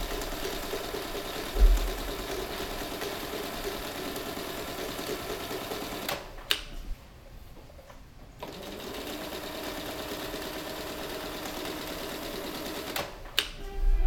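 A small machine running with a fast, steady rattle; it stops for about a second and a half just past the middle, then starts again. A loud low thump comes about a second and a half in.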